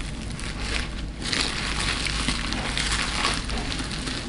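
Aluminium foil food wrapper being crumpled and scrunched in the hands: a crackling crinkle, loudest from about a second in until past the middle.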